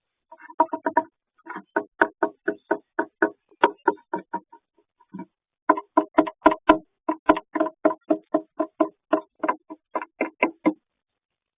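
Great tit hammering with its beak, woodpecker-style: a rapid run of sharp knocks, about four a second, with a short break about halfway through.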